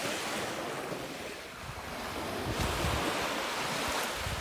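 Small waves breaking and washing up a sand beach, the surf swelling louder about halfway through, with wind buffeting the microphone.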